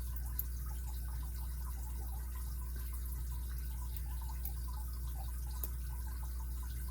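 Faint small ticks and scrapes of a lock pick and tension wrench working in the keyway of a Kryptonite padlock, with two slightly sharper clicks, about half a second in and near the end, over a steady low electrical hum.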